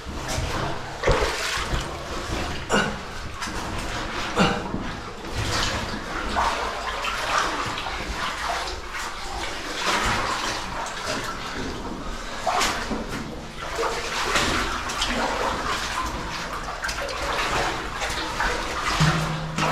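Water splashing and sloshing in uneven bursts over a steady rush of moving water.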